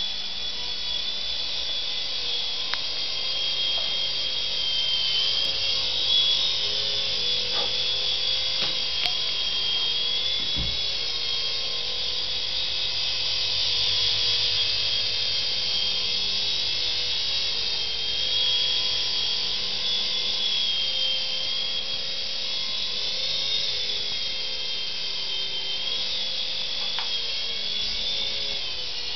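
Coaxial micro RC helicopter in flight: its small electric motors whine and the twin rotors whirr, the pitch wavering slowly up and down as the throttle changes during hovering and manoeuvring.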